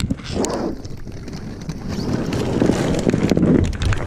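Water sloshing and splashing as a person paddles a float across a pond by hand, mixed with wind buffeting the microphone. The sound swells strongest about two and a half seconds in, with scattered small knocks and clicks.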